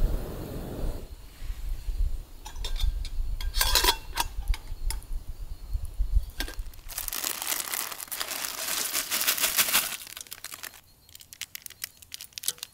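Plastic instant-noodle packet crinkling and tearing as it is opened, in bursts from about two to four seconds in and a longer stretch from about seven to ten seconds in. A few sharp clicks near the end.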